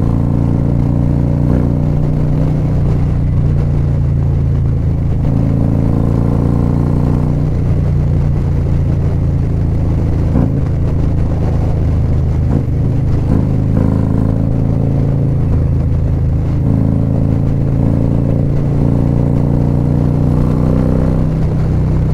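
Harley-Davidson Street Glide CVO's V-twin through Khrome Werks Aggressor headers and slip-on mufflers, heard while riding at road speed; the pitch climbs and eases back a few times as the throttle is worked.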